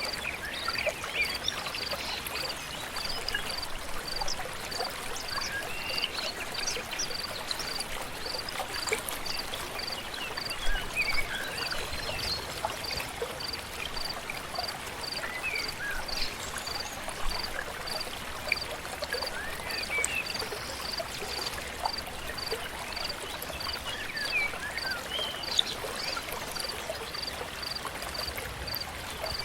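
A river flowing steadily under many short bird chirps and whistles. A high, evenly repeating call pulses nearly twice a second throughout.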